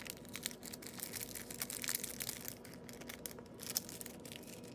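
Rustling and crinkling of a sticker pack's packaging being handled and turned over in the hands, with irregular soft crackles, busiest in the middle of the stretch.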